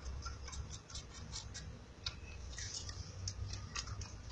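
Kitten suckling from a small milk bottle: its mouth working on the teat makes small irregular clicks, a few a second.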